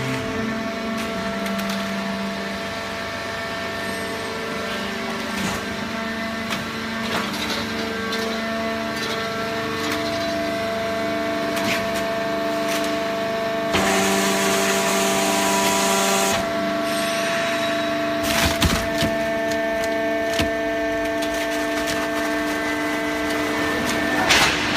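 Horizontal hydraulic waste-paper baler at work: a steady hum and whine from its motor and hydraulic pump, with paper and cardboard cracking and crunching as the ram compresses the bale. A burst of hiss lasts about two seconds just past the middle.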